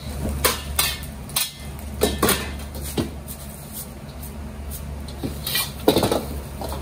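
A metal wok ladle scraping and clanking against a steel wok as fried rice is stirred and tossed: a scattering of sharp clanks, with a quick run of them about six seconds in. A steady low hum runs underneath.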